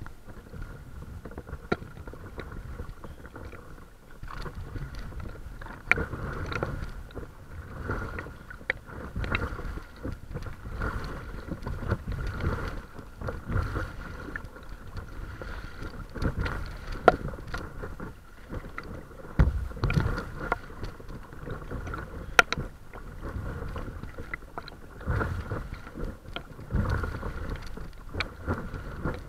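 Paddle strokes and river water splashing and lapping against the bow of a small paddled craft. The splashes come in uneven surges about every one to two seconds, with occasional sharp slaps.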